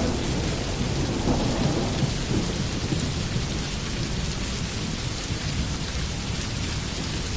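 Steady heavy rain, with a low rumble of thunder in the first couple of seconds that slowly dies away.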